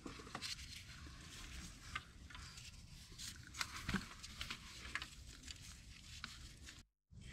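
Faint, scattered clicks and light metal taps: a 12 mm bolt holding the dipstick tube being started in by hand and with a wrench.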